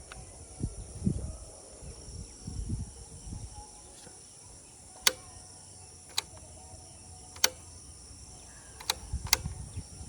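Motorcycle ignition key being turned in its switch: a series of sharp clicks, about five spread over the second half, with crickets chirping steadily behind.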